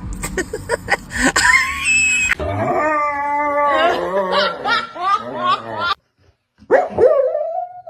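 A dog whining and howling in long, wavering cries after a few clicks; the cries cut off abruptly about six seconds in, and another drawn-out whine starts about a second later.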